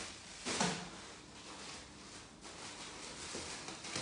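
Plastic bags of sliced meat rustling and crinkling as they are handled, with the loudest crinkle about half a second in.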